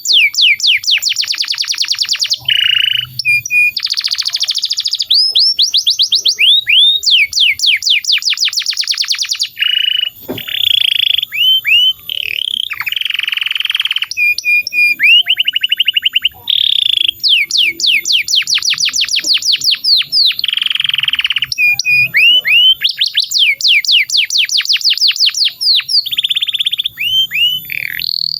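Male domestic canary singing a long unbroken song: rolls and trills of rapid repeated notes, changing from one phrase to the next, each phrase lasting a second or two.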